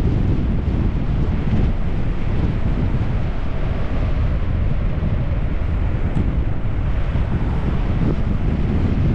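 Wind buffeting an action camera's microphone on a bicycle coasting downhill: a steady, loud low rumble.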